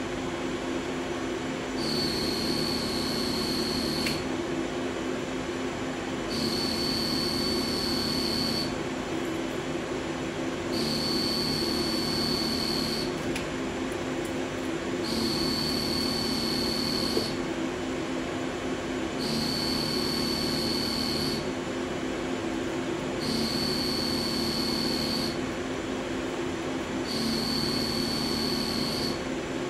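CNC lathe with a driven milling tool cutting a 60 HRC hardened steel pin. A high-pitched whine comes in for about two and a half seconds at a time, about seven times in a steady rhythm, as the tool makes pass after pass. Under it the machine hums steadily.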